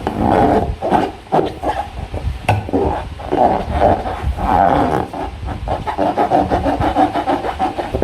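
Close-up hands working slime with a rubber balloon: continuous wet squelching and rubbing, broken by many small clicks.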